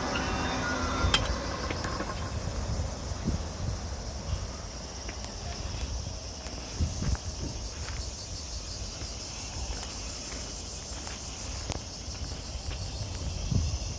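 Steady high-pitched insect chorus of late-summer insects, over a low rumble. The tail of a passing train fades out in the first second or two.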